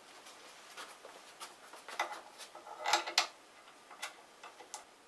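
Scattered light clicks and knocks of hands working the band saw faceting jig's aluminium angle plate and knobs, the loudest a cluster about two to three seconds in.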